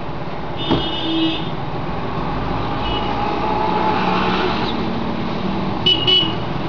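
Steady background road-traffic noise, with a sharp click about a second in and a couple of brief high-pitched tones.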